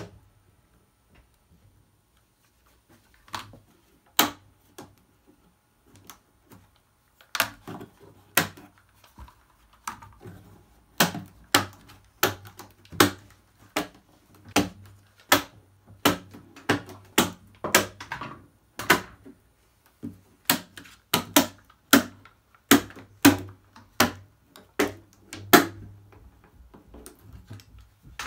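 Irwin one-handed plastic bar clamps being released and taken off one by one: a run of sharp plastic clicks and clacks, a few scattered ones at first, then a steady stream of about two a second.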